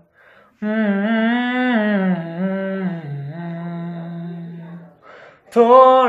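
A man singing unaccompanied: after a breath, a long wordless phrase held and bent up and down in pitch. He takes another breath, and a louder sung line comes in near the end.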